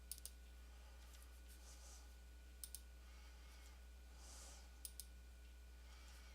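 Computer mouse clicking: three quick double-clicks, a couple of seconds apart, over a faint steady hum.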